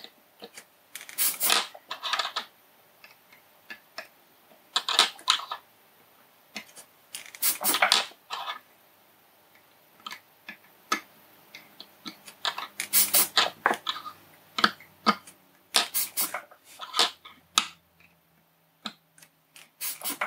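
Soldering iron tip scraping and tapping on the solder joints of a small surface-mount circuit board, as the joints are touched up and excess solder is taken off: a handful of short scratchy rasps a few seconds apart, with faint clicks between them.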